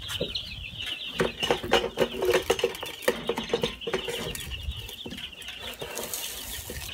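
A brooder full of Cornish Cross broiler chicks peeping constantly in a dense chorus of high cheeps. Over it a plastic scoop scrapes and rustles in a bucket of chick feed, mostly in the first half.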